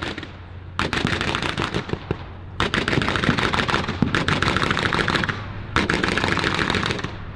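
Machine-gun fire in three long rapid bursts, the first about a second in, the last ending near the end, with a low steady hum underneath.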